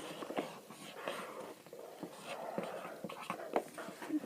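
Pen scratching on paper in a run of short, uneven strokes as someone draws.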